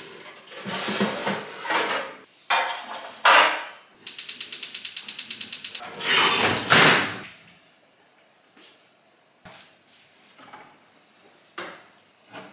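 Metal baking tray and oven rack being handled at a gas oven, scraping and rattling, with an even run of rapid clicks for about two seconds midway, then the oven door being pushed shut. A few light knocks follow near the end as a wall cabinet door is opened.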